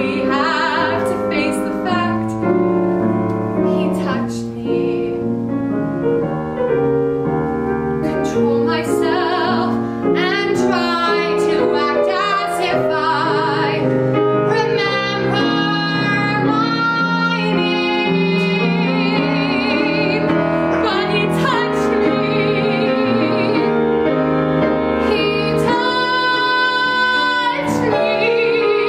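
A woman singing a musical theatre song with grand piano accompaniment, several long held notes sung with vibrato.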